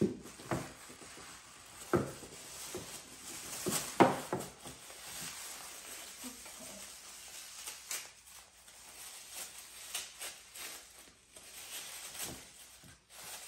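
Paper rustling and crinkling as paper-wrapped toy food is unwrapped by hand, with a few sharper clicks and knocks, the loudest about four seconds in.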